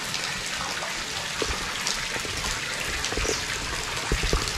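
Water running and splashing steadily from a stone cow-mouth spout into a small stone pool, with a few soft knocks in the second half.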